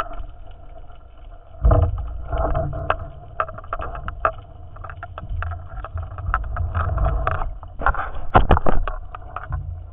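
Underwater sound through a camera's waterproof housing as a diver swims over the seabed: a low rumble of water moving past the housing that swells about two seconds in, with many sharp clicks and knocks throughout.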